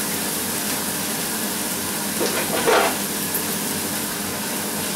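Minced beef, onions and freshly added grated carrot frying in a pan on a gas hob: a steady sizzle, with one brief louder noise a little past halfway.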